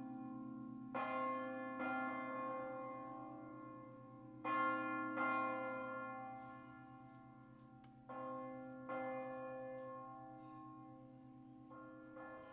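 Swinging bronze church bells of an eight-bell concerto tuned in B-flat, cast by Fratelli Barigozzi. They strike in pairs less than a second apart, a new pair about every three and a half seconds, each note dying away into a long, low hum.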